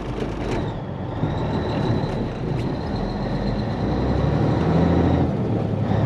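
Diesel semi-truck engine running as a steady low rumble with a faint high whine, getting slightly louder toward the end.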